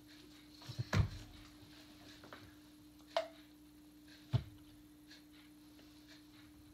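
A few knocks and clicks as a large furry Halloween spider prop is handled and moved: a thump about a second in, a sharp click a little after three seconds, and another knock past four seconds, over a steady low hum.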